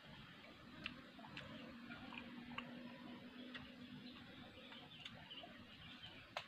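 Faint, irregular mouth clicks and smacks of a man chewing ripe jamblang (Java plum) fruit picked straight off the branch. A faint low hum comes in for a couple of seconds in the middle.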